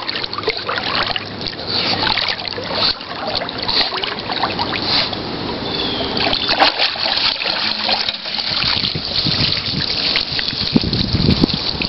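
Water splashing and trickling as a German shepherd swims through a pool and climbs out up the pool steps, water running off its coat.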